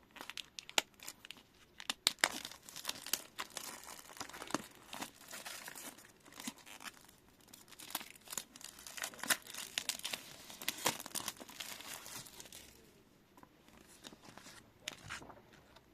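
Packaging on a new Bible being torn open and crinkled: a dense run of rustles, crackles and tearing sounds that thins out near the end.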